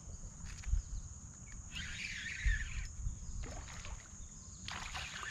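Kayak and fishing-tackle handling noise as a smallmouth bass is hooked and played from a kayak on calm water: low knocks and rumble, a brief hissy rush of noise about two seconds in, over a steady high insect buzz.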